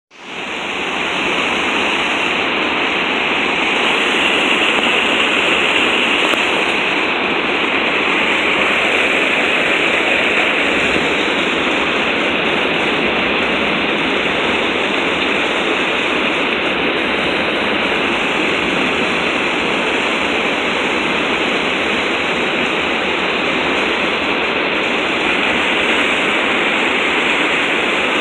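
Water pouring over a low-head river dam's spillway and churning below it: a loud, steady rush of falling water.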